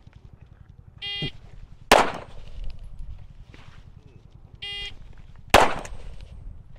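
Electronic shot timer beeps as the start signal, and a single pistol shot follows just under a second later. The sequence comes twice: beep and shot about a second in, then again about five seconds in.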